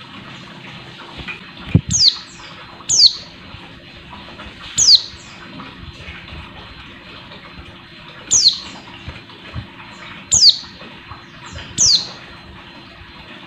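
Caged female white-eye (pleci) giving short, sharp call notes that sweep downward in pitch, six in all, spaced one to two seconds apart: a female calling to male white-eyes. A thump comes just before the first note, over a steady hiss.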